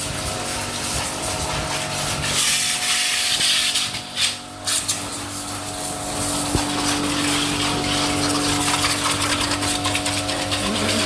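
Scooter-washing machine running: a steady motor or pump hum under a loud hiss of water spray, which breaks off briefly about four seconds in.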